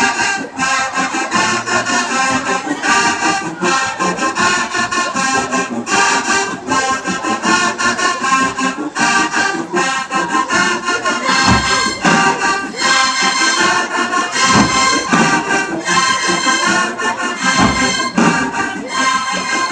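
A marching band playing in the stadium stands: massed brass holding and changing chords over a steady drum beat, with a deep bass-drum hit about every three seconds in the second half.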